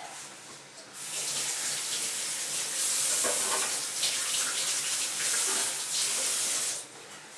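Water tap running as fingers are rinsed under it, turned on about a second in and shut off sharply near the end.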